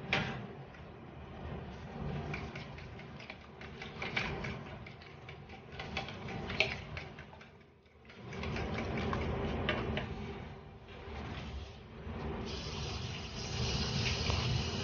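Fork beating raw eggs in a bowl, the tines clicking rapidly and unevenly against the bowl, with a brief pause about eight seconds in. A steady hiss rises over the beating in the last couple of seconds.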